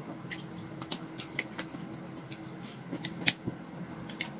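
Metal spoon clinking and scraping against a small glass bowl as creamy dessert is scooped and stirred: a string of sharp, irregular clicks, the loudest a little over three seconds in.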